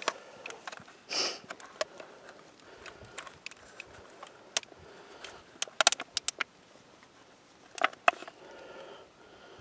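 A folded aluminium pie-plate leech trap crinkling and clicking as it is handled and pinched along its crimped edges: scattered short crackles, loudest in quick clusters about six and eight seconds in. A brief breathy hiss about a second in.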